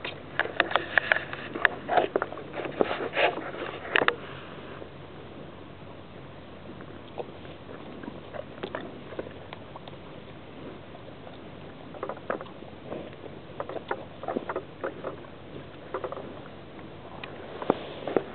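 Young cattle tearing grass and chewing close to the microphone: bouts of quick, crisp rips and crunches, one in the first few seconds, another about two-thirds of the way in, and a third at the end, with quieter stretches between.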